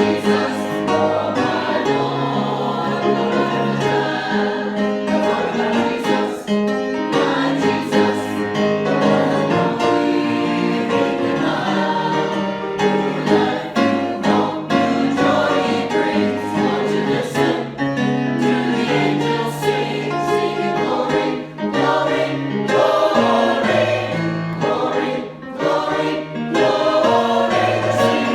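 Choir singing, with sustained, steady musical accompaniment under the voices.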